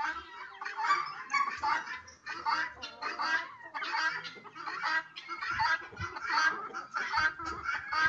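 A flock of chickens clucking and calling all at once, many short overlapping calls with no pause, while they feed on scattered grain.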